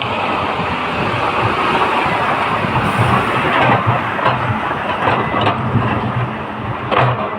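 Heavy diesel machinery running steadily, with a string of sharp metallic clanks and knocks in the second half.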